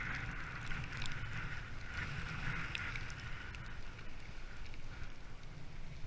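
Dog sled gliding over snow: a steady hiss from the runners with wind rumbling on the microphone, and scattered light clicks and knocks from the moving sled.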